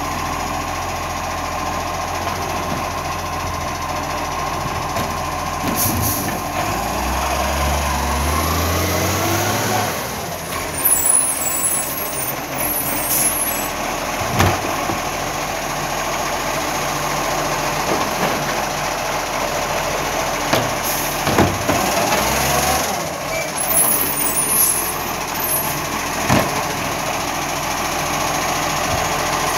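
Side-loading garbage truck at work: its diesel engine runs steadily and rises in pitch for a few seconds as the hydraulic lifting arm works. Then come rattling and clanking as a bin is tipped, several sharp knocks of bins and arm, and hisses of the air brakes.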